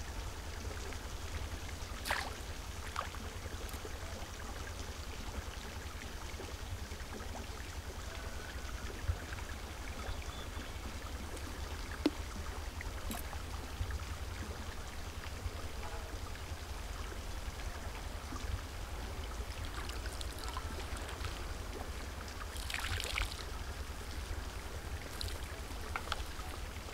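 Water splashing and dripping as a bamboo-framed lift net is worked in a pond, with a short rush of water near the end as the net is raised. A steady low rumble runs underneath.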